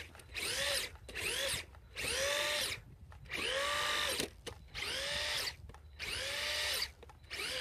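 Brushless motor and drivetrain of a Traxxas Maxx 4S RC monster truck whining in about seven short throttle bursts, roughly one a second, each rising then falling in pitch, as the truck spins its wheels in snow.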